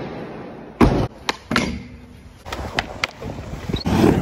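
Skateboard impacts and rolling: a loud thump about a second in, then several sharper knocks and clacks, and skateboard wheels rumbling on a ramp near the end.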